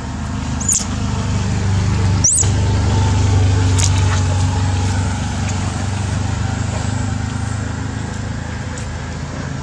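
Low steady hum of a motor vehicle's engine, growing louder over the first few seconds and then slowly fading. Two brief high rising chirps sound in the first couple of seconds.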